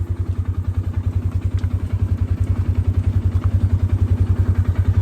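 A vehicle engine idling with a steady, rapid low throb.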